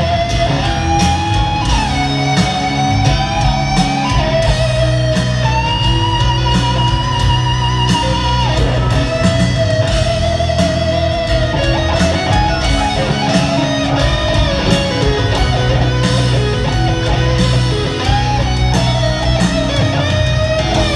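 Live rock band with a lead electric guitar playing a solo of long held, bending notes over the rest of the band.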